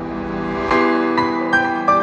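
Background music: a series of piano-like keyboard notes comes in a little under halfway through.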